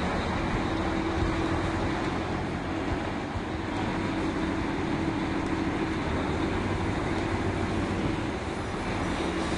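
Drilling rig machinery running: a steady mechanical drone with low hums and a humming tone that fades in and out a few times.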